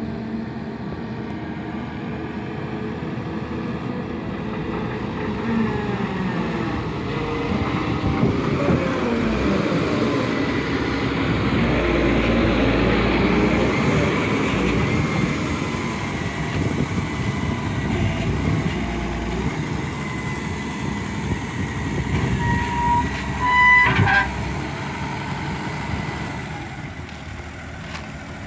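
Volvo EW145B wheeled excavator's diesel engine running, its pitch rising and falling as the revs change. A few short horn-like tones sound about four or five seconds before the end.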